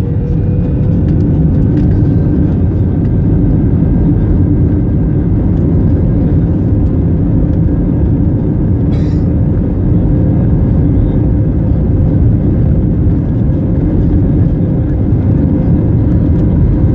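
Airbus A320-family airliner's jet engines heard from inside the cabin: a loud, steady rumble with a thin whine that rises slightly in pitch at the start as the engines spool up.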